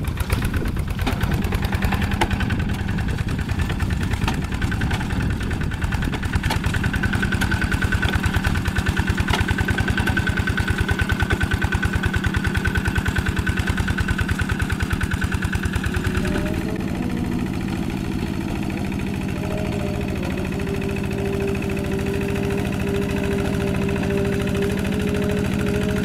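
Two-wheel hand tractor's Kubota diesel engine running steadily under load with a fast firing beat as it drags a rake through wet paddy soil. About two-thirds of the way in the sound turns smoother and a little quieter.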